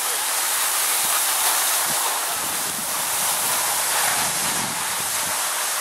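Skis and the ski-bike's runners sliding over packed snow, a steady rushing hiss, mixed with wind on the microphone.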